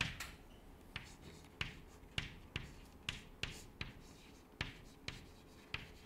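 Chalk writing on a blackboard: irregular short taps, about two a second, each with a brief scratchy stroke as the letters are formed.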